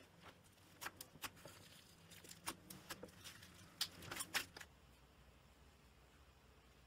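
Slime being squeezed and kneaded by hand, giving a run of faint crackles and sharp little pops that stop a little past halfway through.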